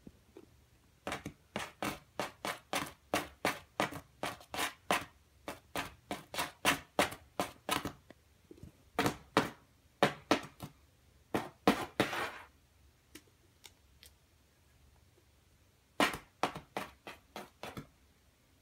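Savannah cat's claws scratching rapidly at a paper sticker on a cardboard box, about three or four strokes a second. The scratching stops for a few seconds, then a shorter run comes near the end.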